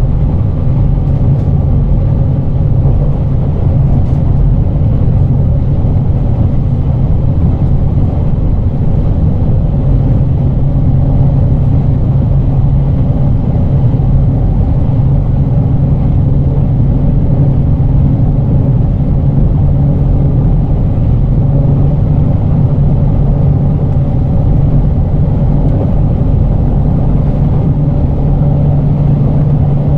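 JR Kyushu 817 series electric multiple unit running along the line: a steady rumble of wheels and bogies on the rails under a low hum that swells about ten seconds in and again after about twenty.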